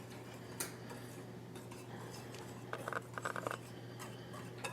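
A utensil clinking lightly against a mixing bowl while dry ingredients are stirred: a single click, then a quick run of taps about three seconds in, and another click near the end.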